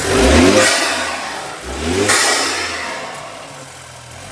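Car engine revved twice, each rev climbing in pitch and then dying back towards idle. It is plausibly the BMW 320i's engine, which is fitted with an MST induction kit.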